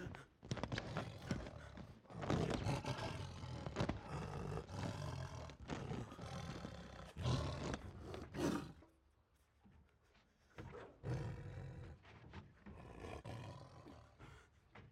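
Bengal tiger roaring and snarling in several rough bouts, loudest in the first half. It falls quiet from about nine to eleven seconds in, then growls again.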